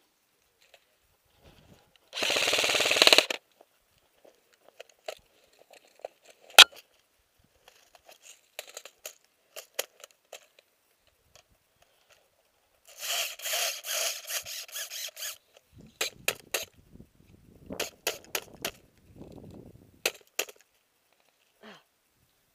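Airsoft electric gun firing full-auto bursts with a motor-driven whirring rattle: a loud burst of about a second near the start, and a longer, choppier string of bursts around the middle. Sharp single clicks and rustling fall in between.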